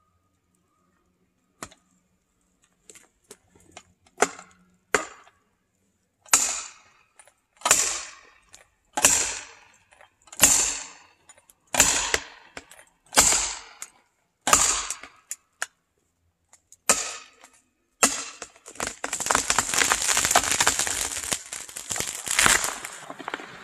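Axe blows driving felling wedges into the back cut of a big conifer, a few light taps and then about ten hard, evenly spaced strikes, one every second and a half. Then continuous cracking and splintering as the holding wood gives way and the tree starts to fall.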